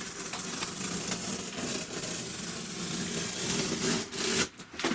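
Skil circular saw motor running steadily, then cutting off about four and a half seconds in.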